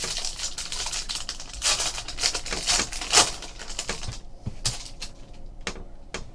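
A trading card pack's wrapper crinkling and tearing as it is opened. About four seconds in this gives way to a string of separate light clicks as the cards are flicked through one by one.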